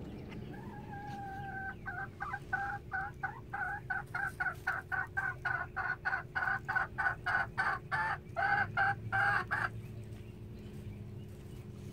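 A hen cackling: one drawn-out call, then a long run of quick, loud clucks at about three a second, ending in a few longer calls and stopping near the end.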